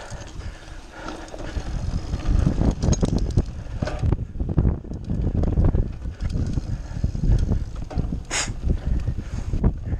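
Mountain bike riding fast over a bumpy grass and dirt trail: irregular knocking and rattling of the bike over the ground, with wind buffeting the microphone. A short sharp hiss comes about eight seconds in.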